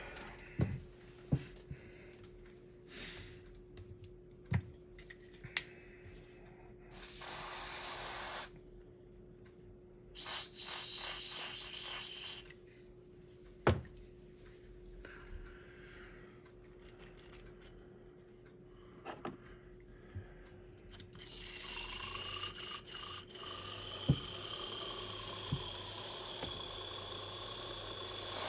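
Aerosol contact cleaner sprayed on a small slot car chassis in two hissing bursts, amid light clicks and taps of small parts being handled. About three-quarters of the way through, a steady hiss with a faint high whine starts.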